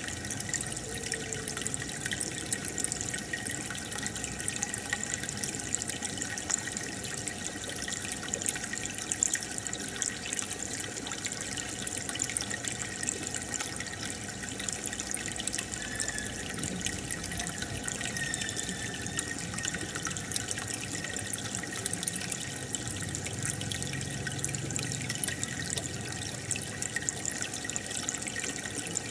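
Aquarium aerator bubbling steadily, with water trickling and crackling as the bubbles break at the surface.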